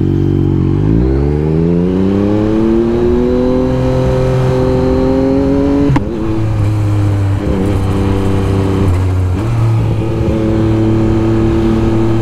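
A 2024 Yamaha MT-09's three-cylinder engine accelerating, heard from the rider's seat, its pitch rising steadily for about five seconds. About halfway through there is a short click and the pitch drops as it shifts up, then the engine runs on at a steadier note with small rises and falls.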